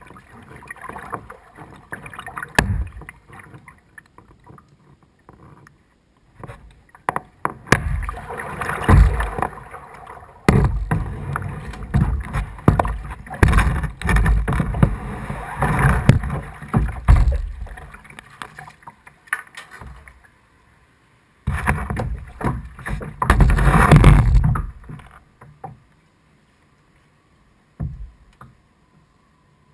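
Kayak paddling through water: paddle strokes splashing and swishing in uneven loud stretches, with quieter gaps between them and a near-silent pause near the end.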